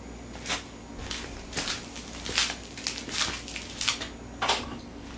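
Footsteps in flip-flops on a concrete floor: about eight short, irregular slaps, over a faint steady hum.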